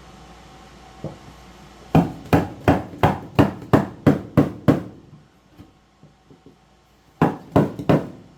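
Hammer blows on wood: a run of about nine strikes at roughly three a second, then a pause and four more strikes near the end.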